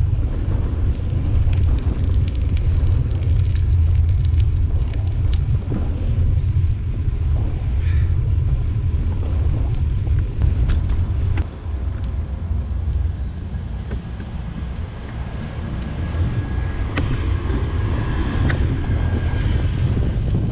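Wind buffeting the microphone of a camera on a moving bicycle, over the low rumble of tyres on the towpath, with scattered small clicks and rattles. A faint steady whine comes in near the end.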